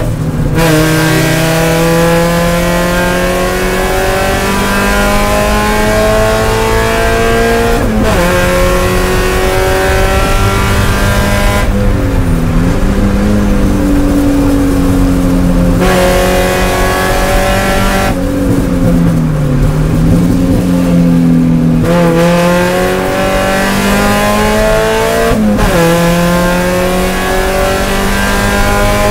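Spec Miata race car's four-cylinder engine heard from inside the cockpit, pulling hard under full throttle with its note climbing steadily, and dropping sharply at each upshift, about three times. Twice it eases to a lower, steadier note while lifting for corners.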